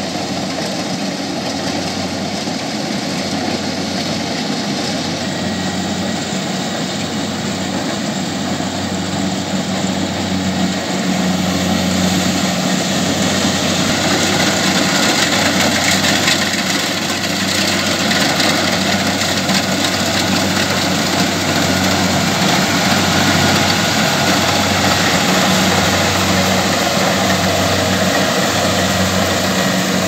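Kubota DC105X rice combine harvester's diesel engine and threshing machinery running steadily under load, with a low hum and a broad mechanical din. It grows louder about a third of the way in as the machine comes close.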